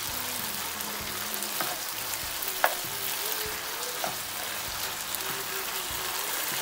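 Pork stir fry sizzling in a non-stick frying pan over high heat as it is stirred with a spatula. Light clicks of the spatula against the pan run through it, with one sharper click a little under three seconds in.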